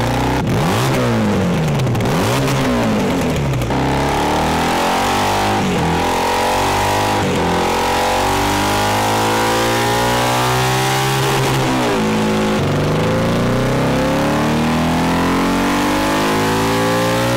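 Custom cafe racer motorcycle engine running loud on a chassis dyno, its rear tyre driving the roller. A few quick blips up and down at first, then revs held high, a drop about two-thirds of the way through, and a long steady climb in revs near the end. These are dyno pulls under load while a Power Commander fuel and timing map is being tuned.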